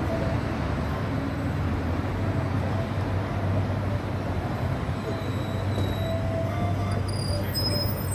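Articulated low-floor electric tram passing slowly: a steady low hum of its drive and wheels rolling on the rails over street noise, with a few faint high-pitched squeaks near the end.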